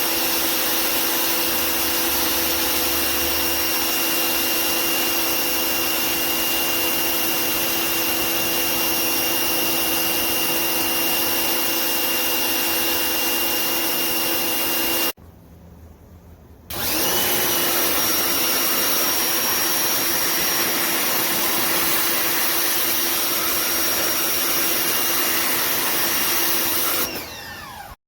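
Electric pressure washer running with a steady motor whine and spray hiss. It cuts out suddenly about halfway through, then starts again after a second or two, its whine settling slightly in pitch as it comes back up.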